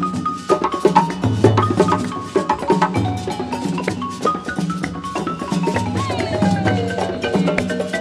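West African percussion music: a balafon (wooden West African xylophone) played with mallets in quick melodic runs over djembe hand drums beating a steady, repeating rhythm.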